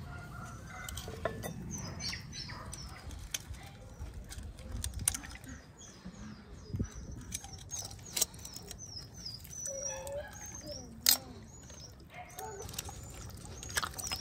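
Metal tongs clicking against a large steel pan as baked lamb is pulled apart, a few sharp clicks, the loudest about eleven seconds in. Birds chirp throughout with many short, high calls.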